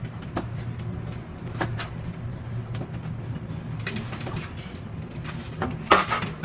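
A few light knocks and clacks of plastic PPR water pipe being handled and set into a chiselled wall chase, the loudest cluster near the end, over a steady low hum.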